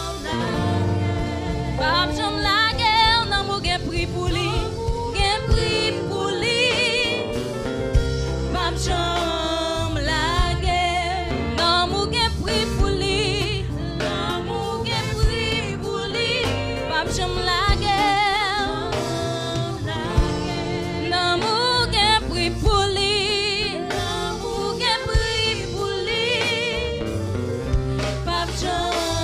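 A woman singing a Haitian Creole gospel song with a wide vibrato, over instrumental backing with a deep bass and occasional percussion hits.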